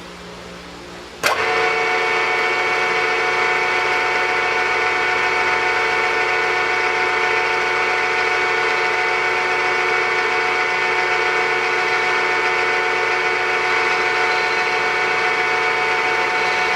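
Machine spindle of a 3-in-1 lathe-mill switched on about a second in, then running steadily with a whine of several fixed tones.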